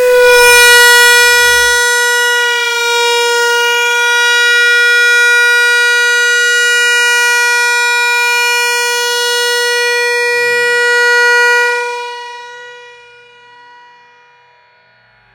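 Air horn sounding one long, loud, steady blast that fades away near the end. A few faint low thumps sound under it near the start and again about ten seconds in.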